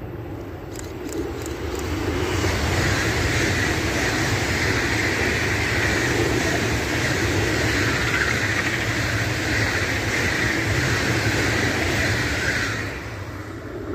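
Deutsche Bahn ICE electric train passing close by at speed: a steady rumble and hiss of wheels on rail that builds over the first two seconds and drops off sharply near the end as the last car goes by.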